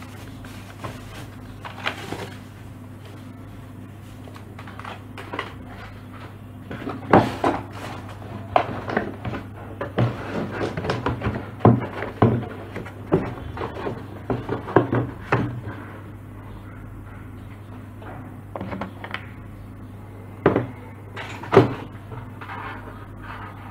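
Cardboard box and plastic wrapping of a keyboard and mouse set being handled during unboxing: scattered knocks and rustles, busiest in the middle and with two sharper knocks near the end, over a steady low hum.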